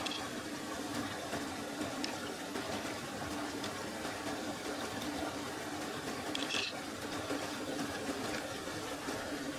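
Steady rush of flowing river water, with a couple of faint clicks.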